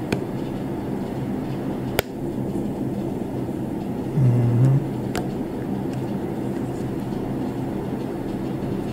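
Steady low room hum, with a few sharp clicks, about two and five seconds in, as a glass honey jar and its plastic cap are handled and fingers pick at the foil seal over the jar's mouth.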